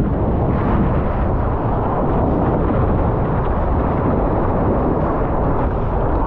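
Loud, steady rush of whitewater and spray from a small breaking wave right at an action camera, mixed with wind buffeting its microphone while the surfer rides the wave.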